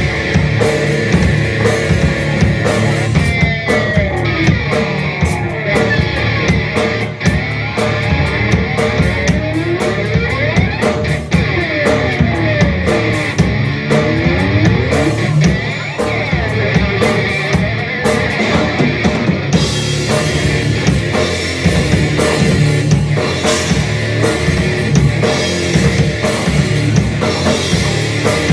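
Live heavy rock band playing instrumentally: distorted electric guitar and bass over a drum kit. Through the first half, sounds sweep up and down in pitch. About 20 seconds in, the cymbals come in harder and the band plays fuller.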